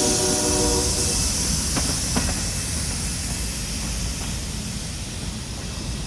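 Empty covered hopper cars of a freight train rolling past and away on steel wheels, with a pitched wheel squeal that stops about a second in and a couple of clicks over the rail joints. The rumble and rolling hiss slowly fade as the last car moves off.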